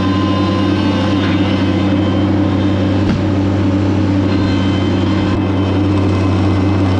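A heavy engine running steadily at constant speed, a deep even hum.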